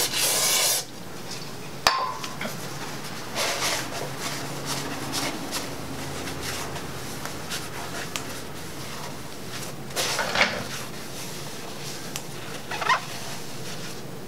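Aerosol brake cleaner hissing into an engine block's cylinder bore, stopping about a second in. Then a rag rubbing the bores clean, with a sharp knock about two seconds in and a few short scrubbing bursts.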